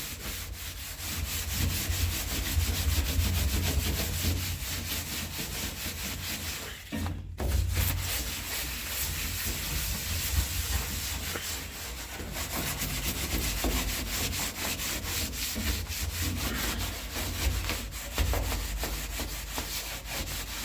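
Rapid, repeated scraping of softened old sound deadening off a Classic Mini's steel floor pan, over a steady low hum, with a brief pause about seven seconds in.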